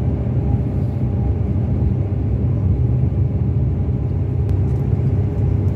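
Mercedes-Benz O-500RSD 2441 coach's diesel engine running with a steady low rumble.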